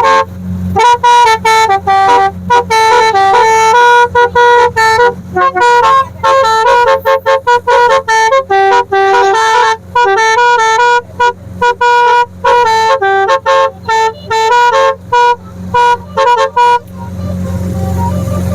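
A telolet basuri musical horn on a tourist boat plays a fast tune of short, stepping notes. It cuts off about 17 seconds in, leaving the boat's engine running with a steady low hum.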